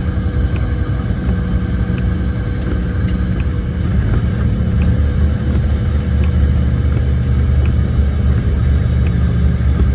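Logging truck's diesel engine and drivetrain heard from inside the cab: a loud, steady low rumble that grows a little louder about four seconds in as the engine takes more load.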